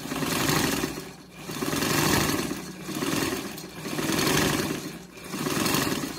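Singer 127 vibrating-shuttle sewing machine stitching through a paper towel, its rapid needle strokes swelling and easing in about five surges. This is a test sew after reassembly, checking that the thread picks up the bobbin and that the tension is balanced.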